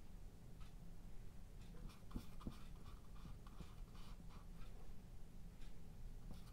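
Faint scratchy strokes of an oil-paint brush dabbing and dragging across a small textured stretched canvas, several in a row.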